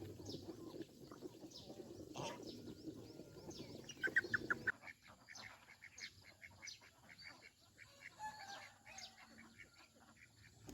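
Farmyard poultry clucking and calling in short repeated notes, with a quick run of about five loud calls a little after four seconds in.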